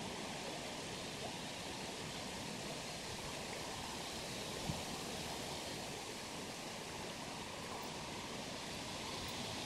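Steady rush of flowing river water, an even hiss, with one short soft knock about halfway through.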